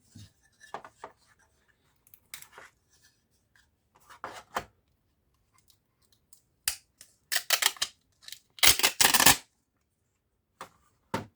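Hands working on a laptop's plastic case and parts: scattered clicks and scrapes, then a sharp click, a quick cluster of clicks and, about nine seconds in, the loudest run of rapid snapping clicks.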